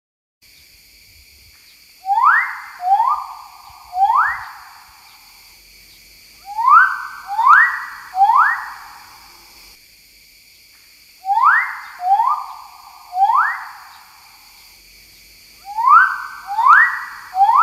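Magnificent riflebird calling: four phrases of three loud whistled notes each, repeated about every four to five seconds, each note starting sharply and trailing off.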